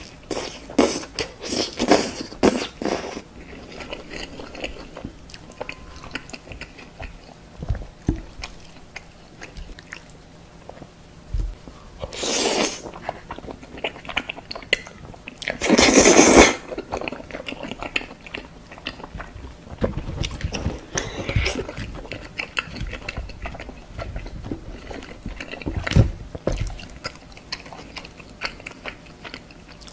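Close-miked chewing and biting of tteokbokki rice cakes, with many short wet clicks and smacks and two louder, longer noisy bursts partway through.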